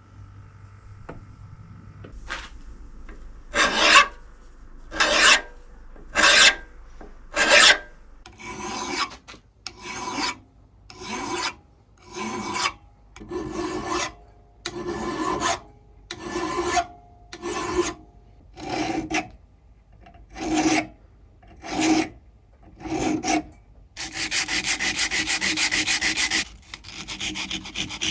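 Steady strokes of abrasion on the metal of a vice being restored, about one stroke a second, each a short rasping rub. Near the end it turns into a steady, unbroken rubbing for several seconds.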